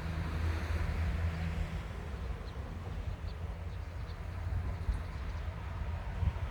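Bessho Line 1000-series electric train running along the track: a low rumble with a steady low hum that eases in the middle and builds again near the end.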